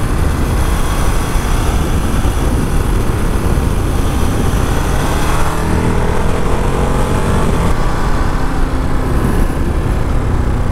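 Ducati Monster's 937 cc V-twin engine running under way, its pitch rising and falling with the throttle through the bends, over a steady rush of wind noise.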